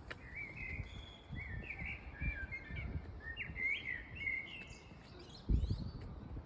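A songbird sings one varied, warbling phrase of quick, high notes lasting about four seconds. Low thumps and rumbles run underneath, with the loudest thump about five and a half seconds in.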